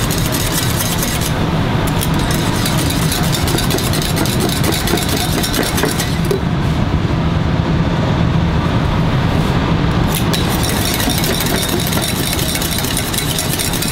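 Wire whisk beating rapidly against a stainless-steel saucepan, a fast steady scraping and clinking as raw butter is whisked into the egg-yolk base of a béarnaise. A steady low hum runs underneath.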